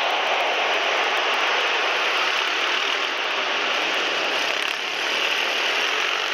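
Pit bike engine running at speed, heard through a camera mounted on the bike: a steady, dense, harsh noise with a small dip about five seconds in.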